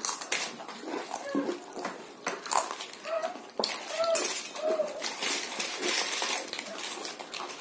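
Lay's potato chips crunching as several people chew them at once: a run of crisp crackles, with the clink of chips on steel plates. A few short hummed vocal sounds come between about three and five seconds in.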